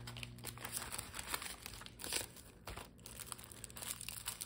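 Clear plastic packaging and vinyl envelope sleeves crinkling softly as they are handled and unwrapped, with scattered small crackles.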